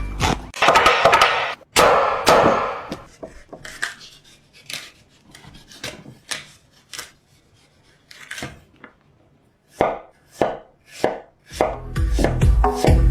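Kitchen knife chopping food on a cutting board in separate, unevenly spaced strokes. A denser rustling, scraping stretch comes in the first few seconds. Background music cuts in again near the end.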